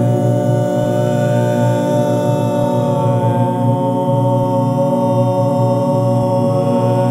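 Layered live vocal loops from an RC-505 loop station: several sung tones held and stacked into a steady, chant-like drone chord. A faint low pulse recurs about every two seconds.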